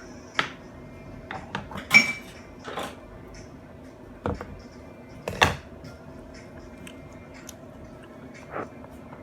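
RC car knocking and clattering in sharp, irregular hits, about seven in all, the loudest about two seconds in and again about five and a half seconds in, over a faint steady hum.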